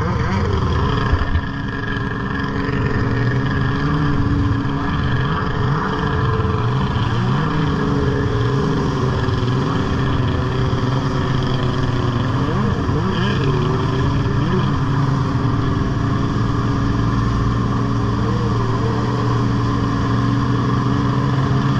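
Kawasaki stand-up jet ski's engine running at speed, a steady drone that dips and rises in pitch a few times as the throttle shifts, over the rush of spray and wind.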